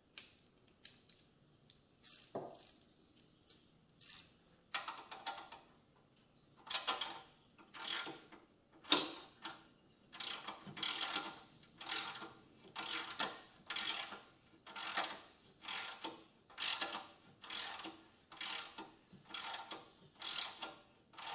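Small hand ratchet clicking in short strokes as a bolt is run in on a motorcycle frame's footrest bar mount. The strokes come irregularly at first, then settle into about one a second from midway.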